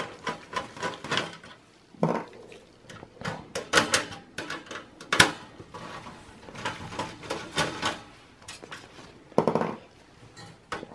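Screwdriver turning out screws in a steel PC case, with irregular metallic clicks and clinks as the tool and loose screws touch the sheet-metal chassis and brackets.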